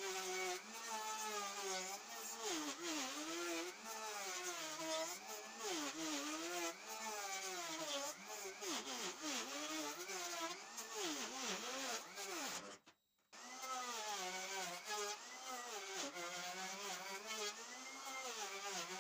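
Bosch POF 1200 AE plunge router running while it cuts across a wooden panel, flattening the surface. Its motor whine keeps sagging and recovering in pitch as the cutter takes load. The sound drops out for about half a second roughly two-thirds of the way through.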